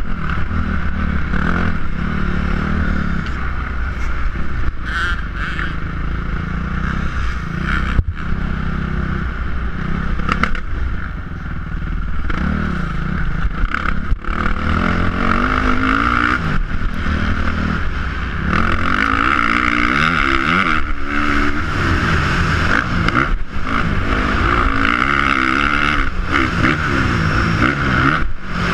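Dirt bike engine revving hard on a motocross track, its pitch repeatedly rising and falling as the throttle opens and closes, with brief cut-offs where the throttle is chopped.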